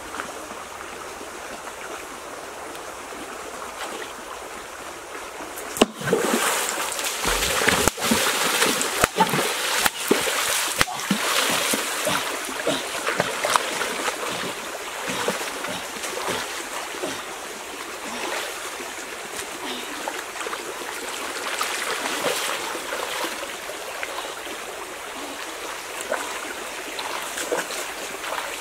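Shallow stream flowing steadily, then from about six seconds in, splashing and sloshing of a person wading through the water, strongest for the next few seconds and continuing more gently.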